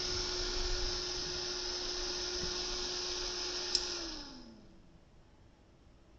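ATX power-supply cooling fan running at full speed: a loud rush of air with a steady hum, the noise of a high-airflow 0.25 A fan. A click comes near four seconds in, then the fan spins down, its hum falling in pitch as the air noise dies away.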